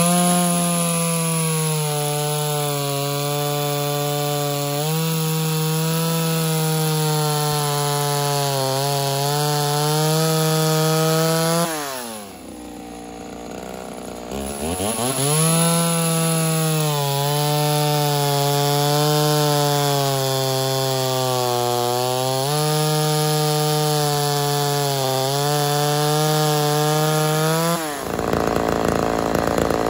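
Mildly ported Homelite Super XL Auto two-stroke chainsaw with a bow bar cutting through a log under load, its pitch dipping now and then as the bar bites. About twelve seconds in it drops back off the throttle for a couple of seconds, then revs up again and carries on cutting.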